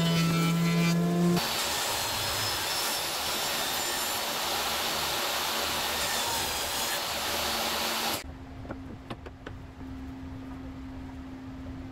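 A jointer running with a steady hum for about the first second and a half. It then cuts to a table saw cutting through a teak and imbuia end-grain board, a dense rushing noise for about seven seconds. About eight seconds in it drops to a much quieter steady hum with a few clicks.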